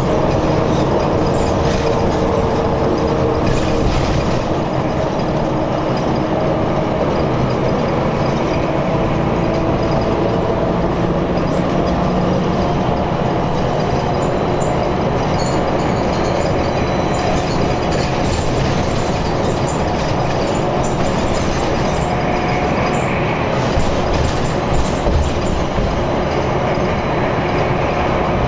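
Steady, loud rumble of highway vehicle and road noise, with a faint steady whine running through it.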